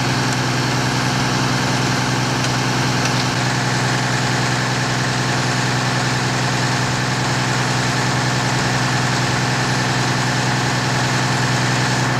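Fire engine's engine idling, a steady low hum that holds without change.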